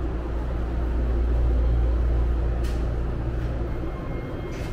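BART train's steady low rumble, swelling slightly and then easing. Two brief hisses come about two and a half seconds in and at the very end.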